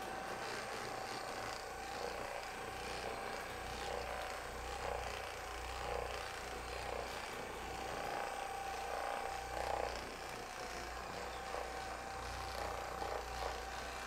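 A handheld percussion massage gun runs steadily while held against a person's back muscles. Its motor gives a constant whine over a low, fast hammering hum.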